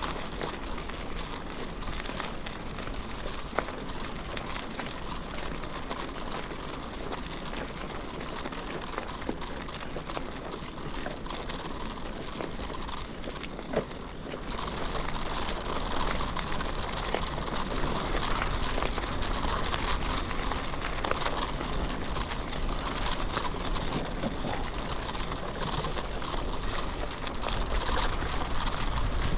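Bicycle rolling along a path: steady crackly noise of the tyres on the ground. It grows louder about halfway through.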